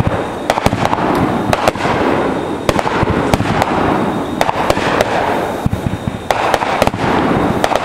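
Fireworks going off in a dense barrage: steady crackling with many sharp bangs in quick succession.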